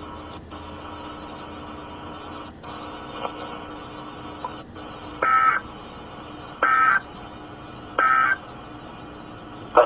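NOAA Weather Radio sending its digital end-of-message code: three short, identical bursts of warbling SAME data tones about a second and a half apart, over a steady radio hiss. The tones mark the end of the broadcast alert.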